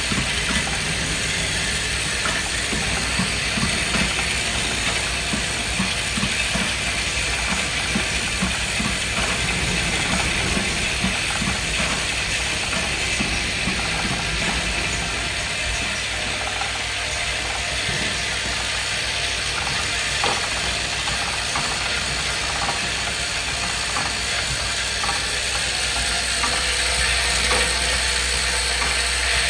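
Automatic perfume filling, crimping and pressing machine running a test cycle: a continuous mechanical clatter of small clicks and knocks over a steady hiss and low hum.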